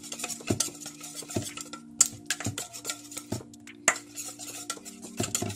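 A wire whisk beating a thin, runny flour batter in a stainless steel bowl: quick, irregular clicks and scrapes of the wires against the metal, several a second, over a steady low hum.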